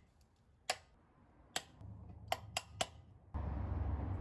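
Five sharp metallic clicks and taps, irregularly spaced, as a screwdriver pries at a four-wheel drive's wheel hub cap. A low steady rumble comes in near the end.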